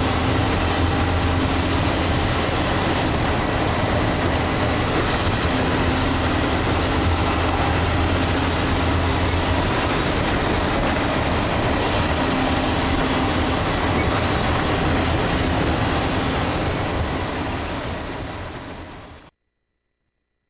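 School bus engine and road noise heard from inside the moving bus, a steady drone. It fades out near the end and then stops abruptly.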